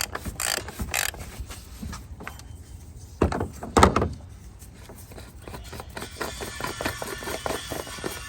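Ratchet with a 74 mm oil filter cap wrench clicking as it turns the oil filter housing cap counterclockwise to loosen it. There are two loud knocks a little past the middle, then a quick run of even clicks near the end.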